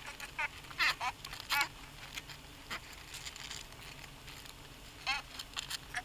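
Short warbling bird calls, four of them, each with a quick pitch wobble, over a faint background with a few light clicks.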